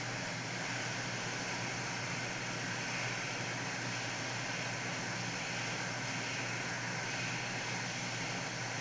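Hot air rework station blowing a steady hiss of air, with its airflow set around 80 to 85, melting the solder on a board-mounted HDMI port for removal.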